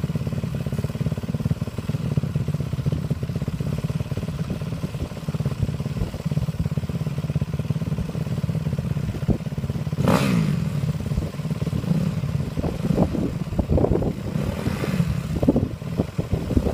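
Two dirt bike engines idling steadily, with a sharp throttle blip about ten seconds in that falls back to idle, and a few shorter revs near the end.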